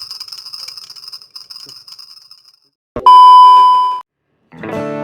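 A loud, steady electronic beep lasting about a second, about three seconds in, after a fainter high, fluttering sound. Acoustic guitar music starts near the end.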